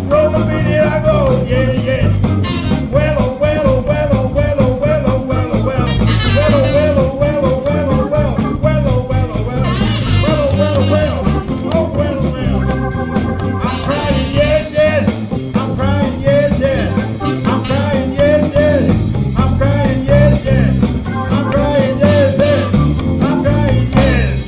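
Live blues-rock band playing an instrumental passage on drums, bass, electric guitars, Hammond organ and saxophone, with a wavering lead line repeating over the band. The band stops suddenly at the very end.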